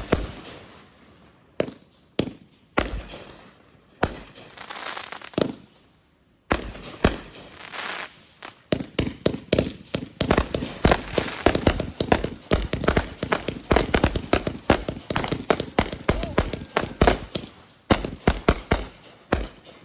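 Consumer aerial fireworks going off in a finale barrage. A few separate booms come first; from about six seconds in they run into a dense, rapid string of bangs and crackle. The barrage is thickest in the middle and ends with a last quick cluster just before the end.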